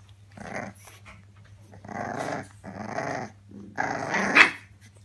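British Bulldog puppy growling in four short growls, the last one the loudest.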